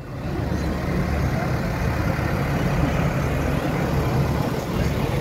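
Large farm tractor's diesel engine running as it drives slowly past at close range, a steady low rumble that grows louder over about the first second and then holds.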